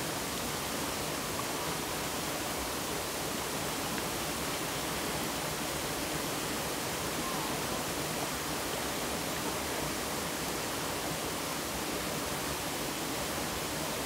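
Valley stream flowing: a steady, even rush of water with no breaks or separate splashes.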